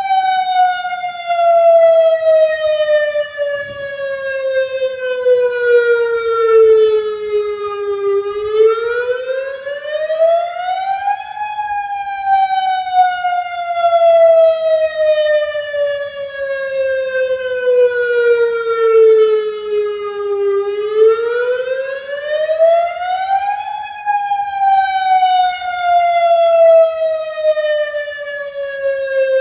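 Federal Signal DSA outdoor warning siren sounding its wail during the monthly test. The pitch climbs for about three seconds and then falls slowly for about nine, and this cycle repeats twice.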